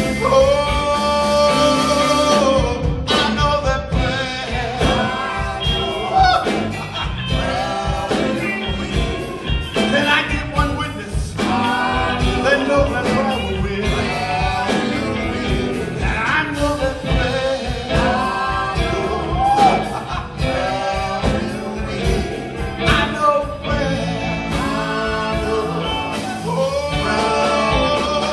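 Gospel group singing live with a band of electric guitars and drums.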